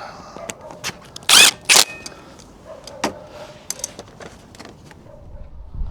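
Metal clinks and clicks of tools and bolts being handled, with two short bursts of an impact gun spinning bolts up about a second and a half in.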